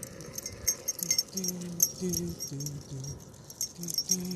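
Metal dog tags jingling in quick, uneven clinks, in step with the dogs trotting. Under them, a low hum comes and goes in short pulses.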